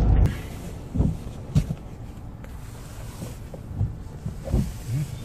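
Steady low rumble inside a waiting car's cabin, its engine idling, with a few soft low thumps.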